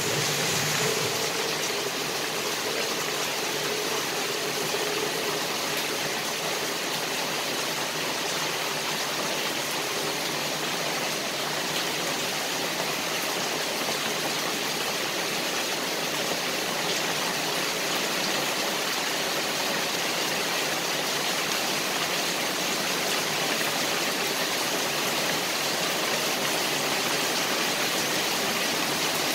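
Rain falling steadily on grass and tree leaves: an even hiss that holds without a break.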